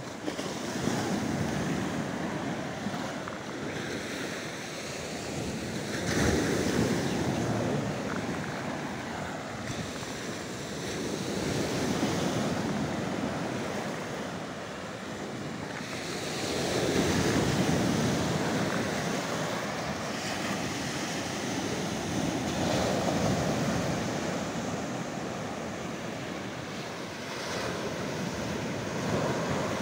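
Sea waves washing in over a rocky shore, swelling and easing every five or six seconds, with wind buffeting the microphone.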